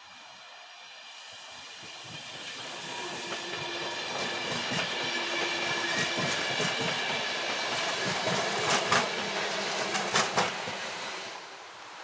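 Electric multiple-unit passenger train rolling past, growing louder as it comes near, with a steady whine and rumble from the running gear. Two pairs of sharp wheel clicks over a rail joint sound near the end, then the train fades quickly as its last car goes by.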